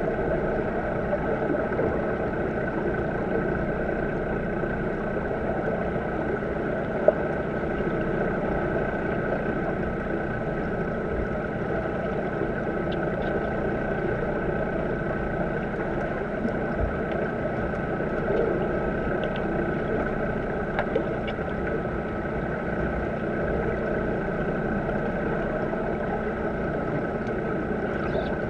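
Steady muffled underwater noise in a swimming pool, picked up by a submerged camera: a constant rumbling wash with a faint steady hum, a few faint ticks, and one sharp click about seven seconds in.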